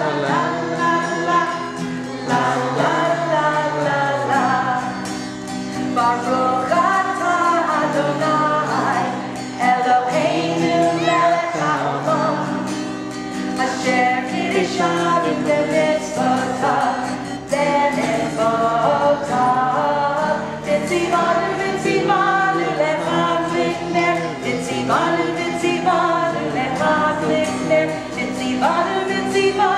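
Women singing a Shabbat blessing to a strummed acoustic guitar, with more voices joining in.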